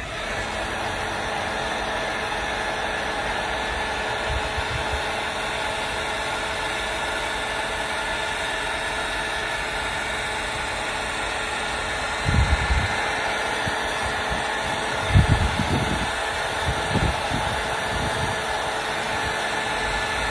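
Heat gun running steadily with a constant fan-motor whine, heating the leather repair compound. A few low bumps are heard about two-thirds of the way in.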